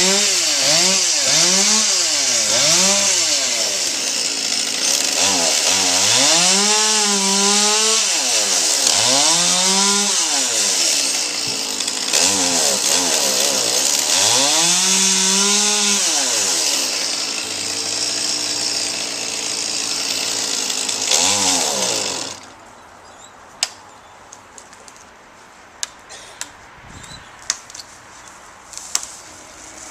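Chainsaw engine revved up and down over and over while cutting wood: quick throttle blips at first, then longer high revs. It cuts off about three-quarters of the way through, leaving a much quieter stretch with scattered small clicks and cracks.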